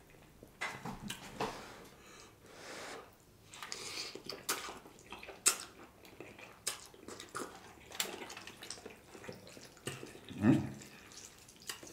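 Close-up eating sounds of noodles slurped from a cup of broth with chopsticks: wet slurps and mouth sounds, broken by sharp clicks. A short hum comes about ten seconds in.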